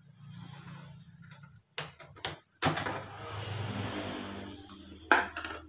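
Kitchen items being handled and set down on a tiled counter and wooden chopping board: a few light knocks, a stretch of rustling about halfway through, then a sharp clatter near the end.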